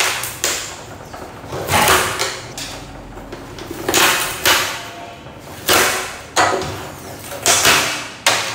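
About eight short, sharp scraping rips as faulty LED backlight strips are pulled off the TV's metal back panel.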